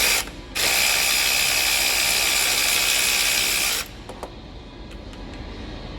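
Ratchet spinning an alternator mounting bolt loose. A short burst at the start, then a loud, even run of rapid clicking for about three seconds that stops abruptly, followed by a few faint clicks.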